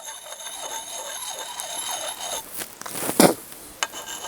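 A two-sided axe puck rubbed in small circles along the wetted steel edge of a Liam Hoffman farm axe: a quick, even run of light rasping scrapes, with one sharper, louder rasp a little after three seconds in.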